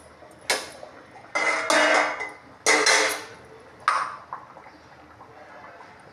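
Stainless steel pots and vessels clanking and scraping, in four bursts: two short and two drawn out.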